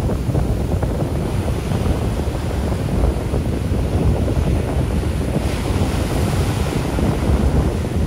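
Ocean surf breaking and washing up the beach, with wind buffeting the microphone in a steady low rumble. The hiss of foaming water swells a little past halfway through.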